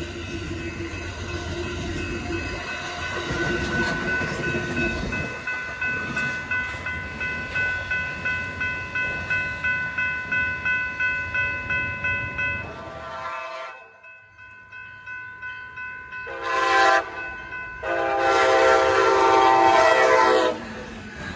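Passenger train rumbling past with a grade-crossing bell ringing about twice a second. After a break, an approaching Siemens Charger passenger locomotive sounds its horn: a short blast, then a long one.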